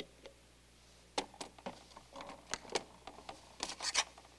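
Small clicks and knocks of plastic bottles being handled and set down on a metal tray. A quick, uneven run of them begins about a second in, with the loudest cluster near the end.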